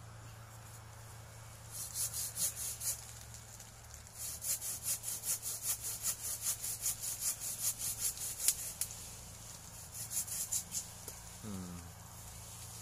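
Hand saw cutting through a durian tree branch in quick, even back-and-forth strokes, about three a second. The strokes come in three spells, and the longest is in the middle.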